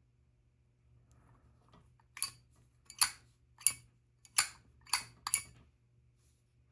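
Zippo lighters being handled: six sharp metallic clicks over about three seconds, with a faint steady hum underneath.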